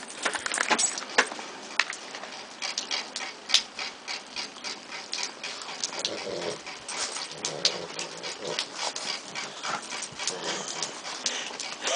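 Two Boston terriers play-wrestling, giving short grunts and whines from about six seconds in, over many short crunching clicks of paws and boots in the snow.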